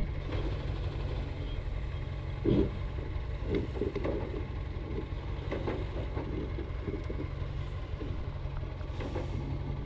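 A telehandler's diesel engine running steadily with a low rumble while it handles a steel rotary hoe on its forks. A few short knocks come over the engine, the strongest about two and a half seconds in.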